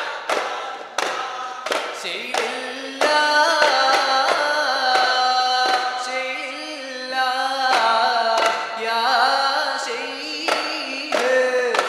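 Duff muttu: singing accompanied by daf frame drums struck together on a steady beat, about three strokes every two seconds.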